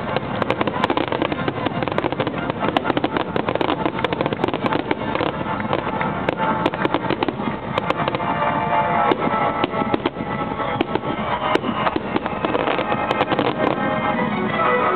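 Aerial fireworks bursting in a dense barrage: rapid, overlapping crackling and popping from many shells at once, with music underneath that comes through more clearly in the second half.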